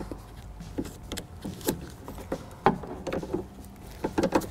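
Light plastic and metal clicks and taps at irregular intervals as a curved door-lock rod is fitted into the back of a car's inside door handle.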